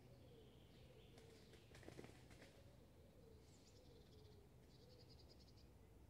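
Very faint park ambience: birds chirping now and then, with a falling chirp and then a short, rapid trill in the second half, over a low steady hum.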